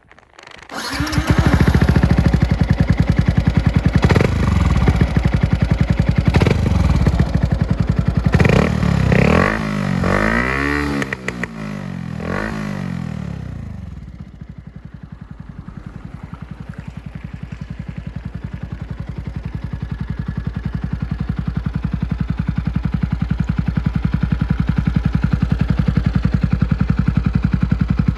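Yamaha YZF-R125's single-cylinder four-stroke engine through a Leo Vince full exhaust with its dB killer fitted: it starts about a second in and is revved in a string of blips, quicker ones around the middle. From about halfway it settles to a steady, evenly pulsing idle that slowly grows louder.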